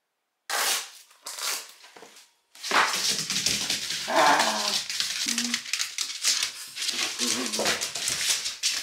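Shiba Inu whining and whimpering excitedly in greeting, a sign of its owner coming home, while its claws click and skitter on a wooden floor as it bounds about.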